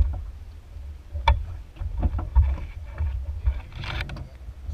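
Small aluminium boat on open sea: an uneven low rumble of water and wind buffeting against the hull, with scattered knocks and clicks of fishing gear.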